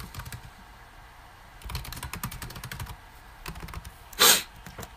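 Typing on a computer keyboard: a few key clicks, then a quick run of keystrokes, then a couple more. About four seconds in there is one short, louder burst of hissing noise.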